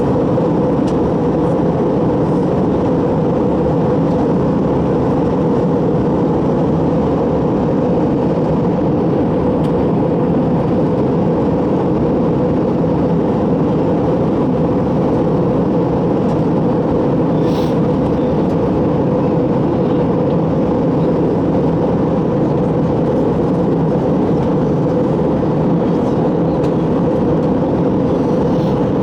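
Steady cabin noise of an Airbus A321 airliner in flight: engine and airflow noise heard from inside the passenger cabin.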